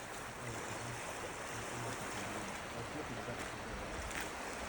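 Steady wash of lake water and wind: an even hiss with no distinct events.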